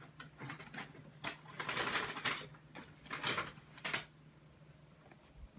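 Irregular rustling and clattering of an object being handled, in several bursts over a few seconds, over a steady low electrical hum.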